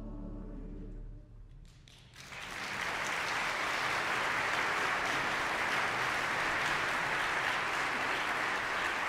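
The final held chord of the chorus and orchestra, cut off about a second in, then after a short pause a few first claps and an audience's applause that builds quickly and carries on steadily: applause at the end of the piece.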